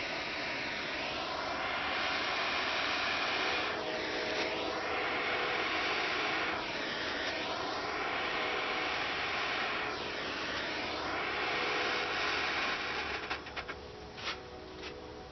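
Small propane torch burning with a steady hiss, its tone sweeping down and back up about every three seconds as the flame is moved over the seam. About two seconds before the end the hiss falls away and a few sharp clicks follow.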